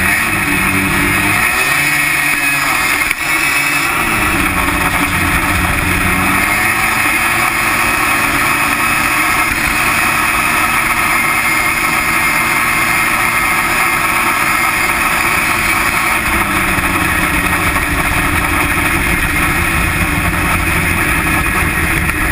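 Snowmobile engine running hard through its CVT clutches, the pitch dipping and climbing in the first few seconds, then held steady for about ten seconds while the clutches shift, and falling to a lower pitch for the last several seconds.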